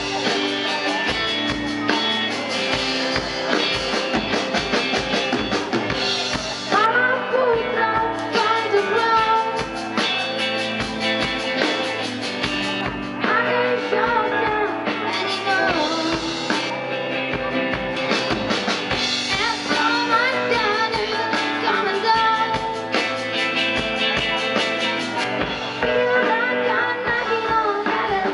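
A young rock band playing live: drum kit keeping a steady beat under guitar, with a sung vocal line.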